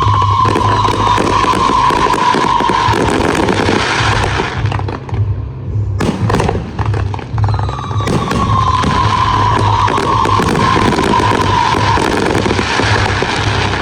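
Fireworks display: dense crackling and popping with a slowly falling tone twice. Music with a pulsing low beat plays underneath. The crackle thins briefly about five seconds in, then resumes abruptly at full strength.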